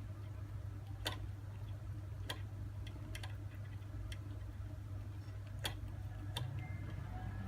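Scottish Fold kitten feeding: sharp, irregular small clicks, roughly one a second, over a steady low hum.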